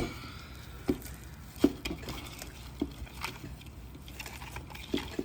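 Slime being squeezed and pulled by hand, giving a handful of short, irregular sticky pops and squelches.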